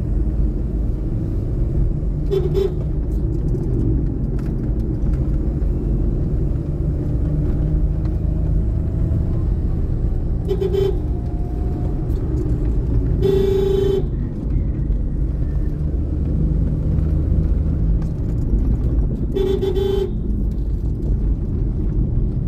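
Steady low engine and road rumble inside a moving car, with a vehicle horn honking four times, the third honk the longest.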